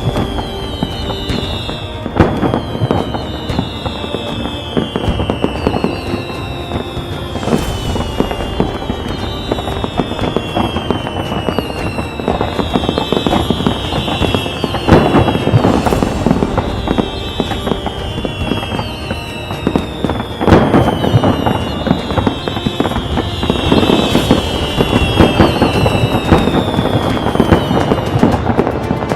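Fireworks display: dense crackling with heavy bangs every few seconds, over a whistling tone that falls in pitch and repeats about once a second.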